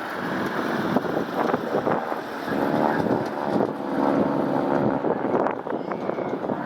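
Propeller airplane engine droning, with wind buffeting the microphone.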